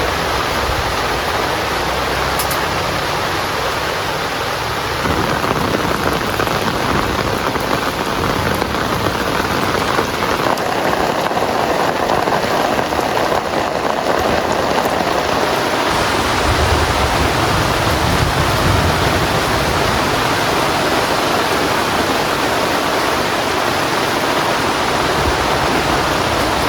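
Heavy rain falling steadily, a loud dense hiss, with a low rumble near the start and again past the middle.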